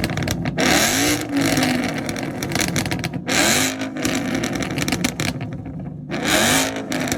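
A car engine revved hard three times at standstill, with a loud exhaust. Each rev climbs in pitch and then holds before dropping back.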